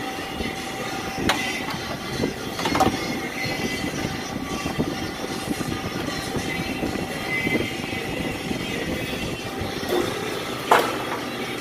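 Steady mechanical rumble of a working auto repair shop, broken by a few sharp metal clanks. The loudest clank comes near the end.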